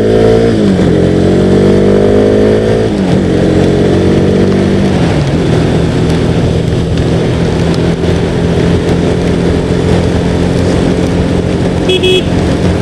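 Motorcycle engine accelerating through the gears: its pitch climbs and drops sharply at three upshifts in the first five seconds, then the engine runs steadily at cruising speed under a constant rush of wind and wet-road noise. A brief horn toot sounds near the end.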